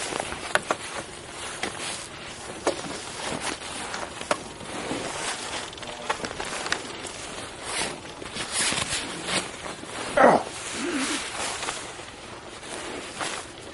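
Handling noise from a camera being carried and moved about: rustling against clothing, with scattered clicks and knocks and one short squeak that falls in pitch about ten seconds in.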